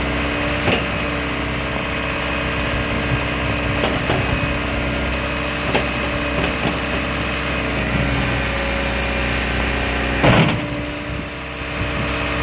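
John Deere 310HL backhoe's diesel engine idling steadily, with a few short knocks and clanks. About ten seconds in, a louder clunk is followed by the deepest part of the engine rumble dropping away.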